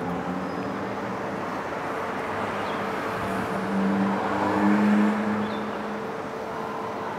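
Road traffic: a steady rush of passing cars, with one vehicle passing close and growing louder about four to five seconds in.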